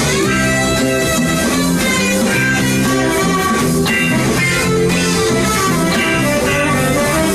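A live band playing an instrumental passage: guitar to the fore over bass guitar and a drum kit keeping a steady beat.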